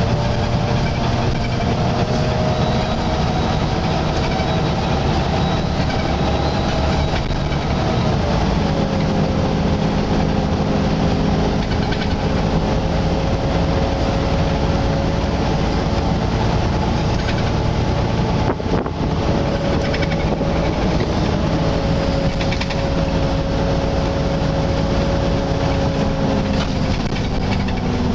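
Volvo B9TL double-decker bus's engine cooling fan whining loudly over the engine and road noise, heard inside the upper deck; its whine drops in pitch about eight seconds in and again near the end.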